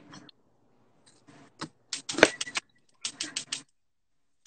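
Kitchen utensils clattering: sharp metallic clinks and knocks, in two quick runs in the second half. This is the clatter that is called loud in the kitchen.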